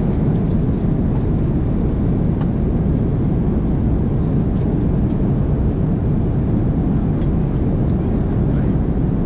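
Airliner cabin noise in flight: a steady low drone of engines and rushing air, unchanging throughout.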